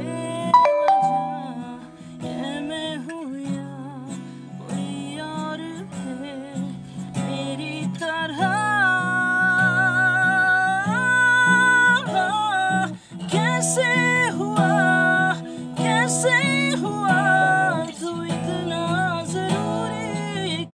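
Acoustic guitar strummed in chords, with a voice singing along; one long held sung note near the middle.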